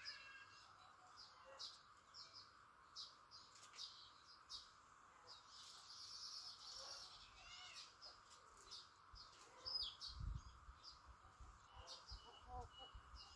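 Faint, frequent short high bird chirps, over a steady low background hiss, with a brief low bump about ten seconds in.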